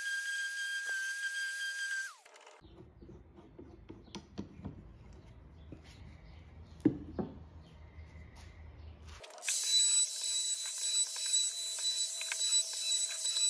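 DeWalt random orbital sander running at a steady high pitch, stopping about two seconds in with its pitch dropping as it winds down. After a quieter stretch with a few light knocks, a Makita compact trim router starts about nine seconds in and runs with a loud, steady high whine against a wooden board.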